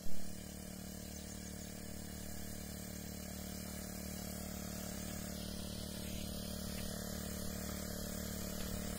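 Engine-driven backpack power sprayer running at a steady drone with a hiss of spray, growing slowly louder as it comes closer. A short bump sounds right at the start.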